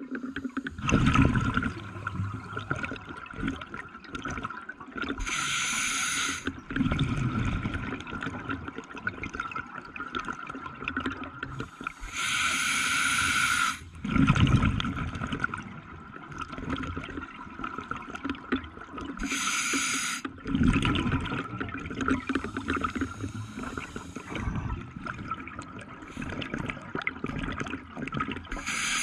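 Scuba diver breathing through a regulator underwater: about four slow breaths, roughly one every seven seconds, each a hiss of air through the demand valve on the inhale followed by a rush of exhaled bubbles.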